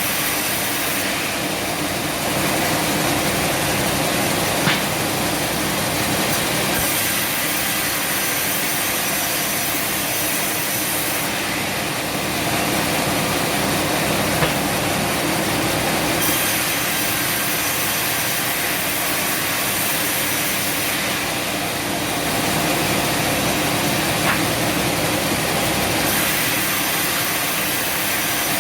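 Sawmill saw cutting through a bubinga log, a steady loud machine run whose upper hiss brightens and dulls every several seconds, with a faint knock about every ten seconds.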